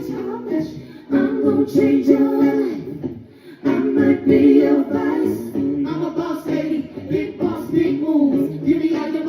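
A live singing voice with music behind it, the voice gliding through wordless melodic runs, with a brief drop in level about three and a half seconds in.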